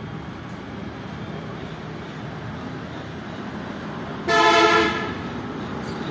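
A single short horn blast, loud and steady in pitch, lasting about half a second a little past four seconds in, over steady background noise.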